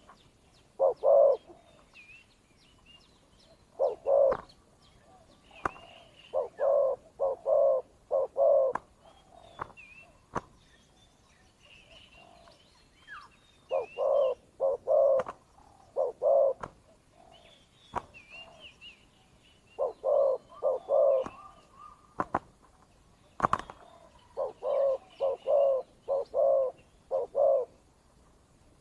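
Spotted doves cooing: repeated phrases of three to five short, low notes every few seconds, the decoy and wild dove calling against each other in a territorial contest. Small birds chirp faintly higher up, and there is a sharp click about two thirds of the way through.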